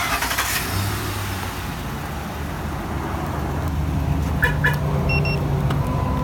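A Ford F-150 V8 that has just been remote-started, now running at idle with a steady low hum. About four and a half seconds in come two clicks, then two short high beeps.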